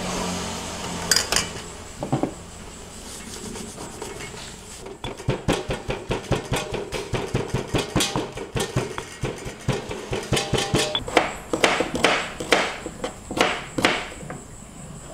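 Rapid repeated knocking strikes of a kitchen utensil, several a second, starting about five seconds in, growing louder and stopping near the end.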